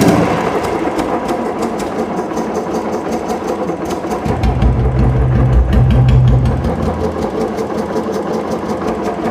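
Royal Enfield Bullet Electra's single-cylinder engine idling steadily, with no decompressor ticking now that the decompressor pin has been replaced. About four seconds in, the exhaust note turns deeper for around three seconds as a hand is held against the silencer.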